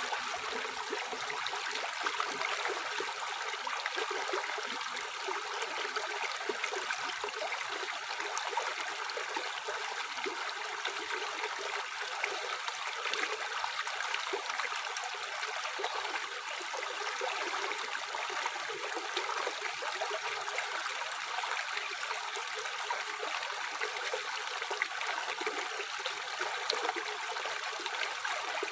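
Tap water running steadily into a sink, an even splashing hiss that holds without a break.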